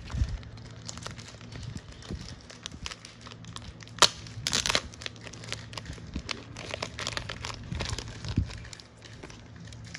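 Trading cards in clear plastic top loaders and sleeves being handled: plastic crinkling and clicking, with a sharp click about four seconds in and a louder crinkle just after it.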